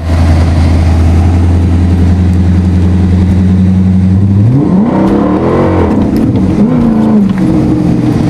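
Car engine running at a steady drone, then revving up hard about halfway through. The pitch climbs, wavers up and down for a few seconds as the car accelerates, and falls back near the end.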